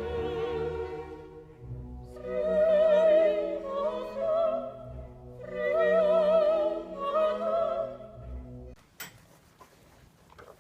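Operatic singing with heavy vibrato over an orchestral accompaniment, swelling in two loud phrases and cutting off suddenly near the end, leaving a quiet room with a few faint clicks.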